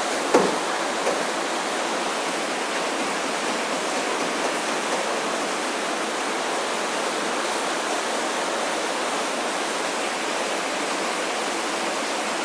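A steady, even hiss, with a sharp knock about a third of a second in and a lighter one about a second in.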